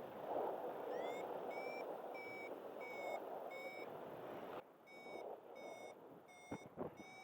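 A paragliding variometer beeping, with short high beeps about twice a second, the first one gliding up in pitch. This is the vario's climb tone, the sign that the glider is rising in lift. Wind rushes over the microphone underneath and drops away about two-thirds of the way through.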